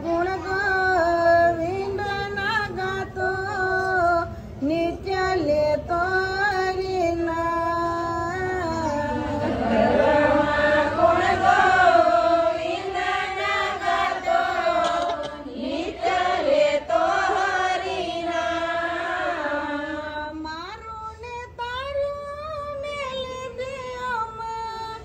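A woman singing a slow song, holding long notes and sliding between pitches. She is loudest a little before the middle and softer towards the end.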